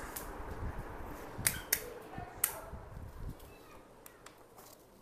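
A few sharp clicks, three of them between about one and a half and two and a half seconds in, over a faint low rumble that fades out after about three seconds.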